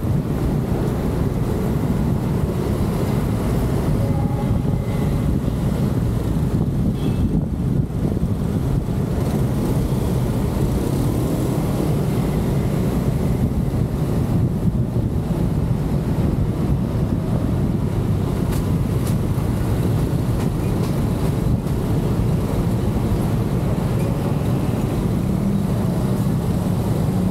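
Steady low rumble of a vehicle on the move: road and engine noise, with wind noise on the microphone.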